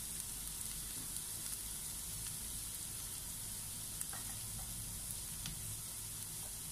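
Chopped onions sautéing in a tablespoon of cooking oil in a nonstick frying pan: a steady sizzle with an occasional small pop.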